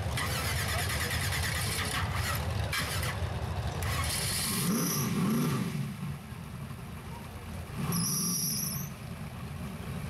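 Rock racing buggy's engine running hard at high revs on a steep climb, its pitch swinging up and down, then dropping back to lower revs about six seconds in. A high-pitched squeal sounds briefly around halfway and again for about a second near the end.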